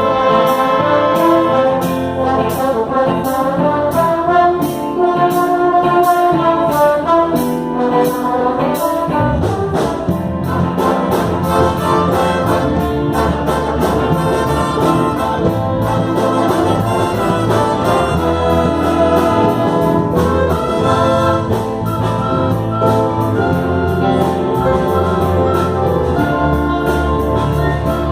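Brass band playing a tune, trumpets and trombones holding and moving through melody notes over a steady drum beat.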